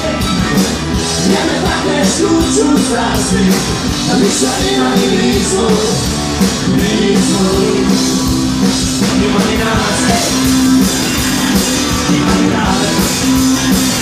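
Live rock band playing: drum kit and electric guitars over a steady beat, with a sung vocal line.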